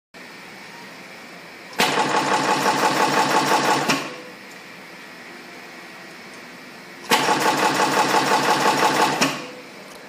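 EW-21D flexible flat cable crimping machine running two crimp cycles of about two seconds each, a rapid, even pulsing machine rhythm, with a steady hum between them.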